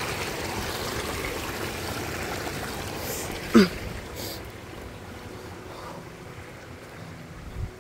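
Small rocky creek trickling and splashing over stones, growing quieter about halfway through. Just past the middle a brief sharp squeak slides quickly downward in pitch, and there is a soft low thump near the end.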